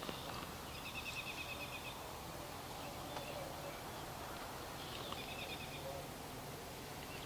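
Faint outdoor ambience with a small songbird singing a short, rapid high trill twice, about four seconds apart.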